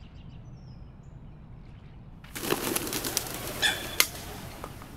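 A flock of birds taking off and flying, their wings flapping in a dense clatter that starts about two seconds in and lasts a couple of seconds.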